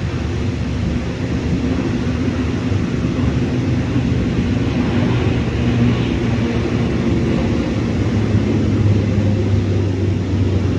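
Airliner engines running, a loud steady rumble with a low drone, swelling slightly about halfway through.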